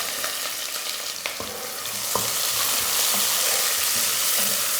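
Sliced onion sizzling in hot oil with whole spices in a pressure cooker, being stirred, with a few light knocks against the pot.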